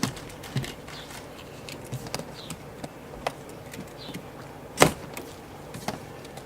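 Cardboard boxes and packaging being handled and opened: scattered light clicks and rustles, with one loud sharp knock near the end.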